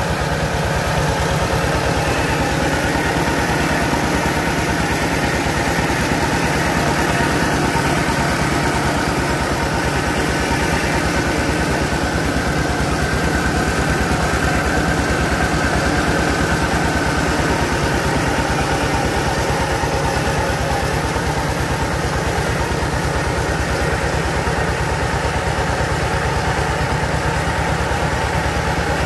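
Mobile rice milling machine running steadily under load: its engine driving the huller and polisher at an even pace, with a fine rapid pulse throughout.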